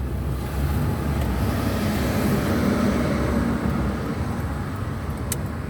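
Car on the move, heard from inside the cabin: steady engine and road noise, with a faint hum swelling in the middle and a single sharp click near the end.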